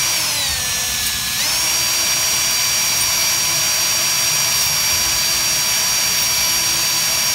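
Cordless drill spinning a 3/32-inch bit through the clogged burner port holes of a brass grill burner: a steady high-pitched motor whine that sags in pitch during the first second and picks back up, then holds steady.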